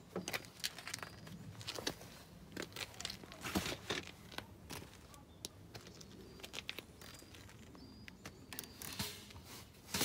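Irregular rustles, crinkles and knocks of bags and camping gear being loaded into a folding fabric camp wagon, with footsteps on asphalt.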